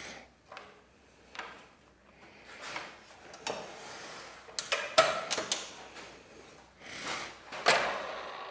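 Irregular workshop handling sounds: wooden pieces knocked, slid and rubbed against one another and the bench. There is a cluster of sharp clacks about five seconds in and another knock near the end.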